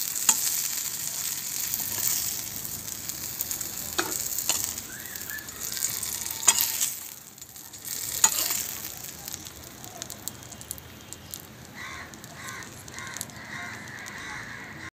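Prawns frying in hot oil in a pan, a steady sizzle stirred with a spatula that clicks sharply against the pan now and then. The sizzle grows fainter about halfway through.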